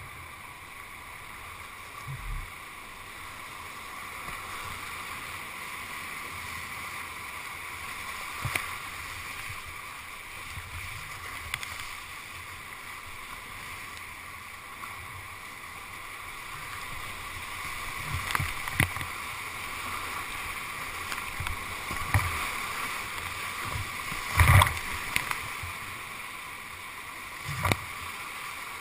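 Whitewater rapids rushing steadily around a kayak at high water, heard from a GoPro on the boat. Splashes and knocks hit the boat every few seconds, the loudest about three quarters of the way through.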